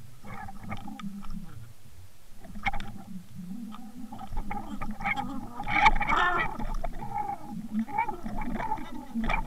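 Underwater sound picked up by a camera on the fishing line: a wavering low drone with scattered clicks and knocks, busiest about six seconds in.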